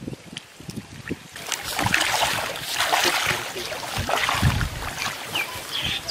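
Pond water splashing and sloshing as a bamboo-framed hand push net is shoved through shallow, weedy water, starting about a second and a half in, with a few low thuds around the middle.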